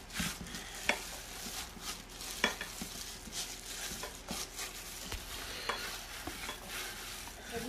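Raw minced lamb mixture being kneaded and mashed by a hand in a plastic glove in a steel pot, in irregular strokes, with a few sharp clicks.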